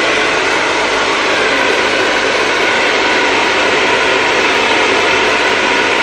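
Bronson Professional 2000-watt hand-held hair dryer running, blowing a steady rush of air with a faint motor whine in it.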